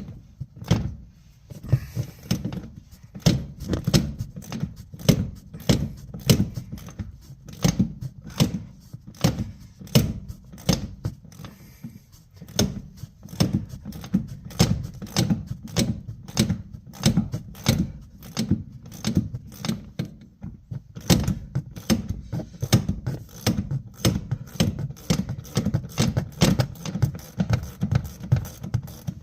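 Hand ratchet wrench clicking in quick, uneven runs, a few clicks a second, as the seat-mount nuts are backed off the floor studs, with a short pause a little past the middle.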